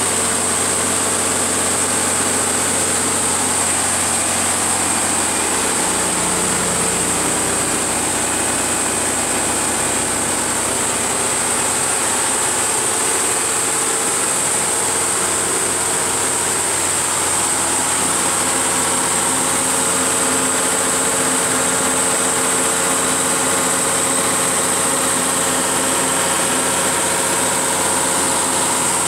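Cummins QST30 V12 diesel engine of an 800 kW generator set running steadily at 1800 rpm under heavy load, near its full rated kW, heard inside the sound-attenuated enclosure. A steady high whine sits over the engine note.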